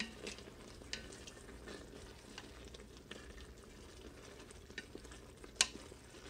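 Wooden spoon stirring a thick sauce in a hot stainless steel Instant Pot insert, with a low sizzle under it. The spoon knocks against the pot's side now and then, loudest with one sharp knock about five and a half seconds in.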